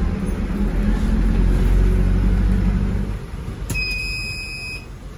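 Bus engine rumbling while the bus is under way, dying down about three seconds in as the bus comes to a stop. Near the end a loud electronic beep of about a second sounds, the bus door's warning beeper as it comes up to or opens at the stop.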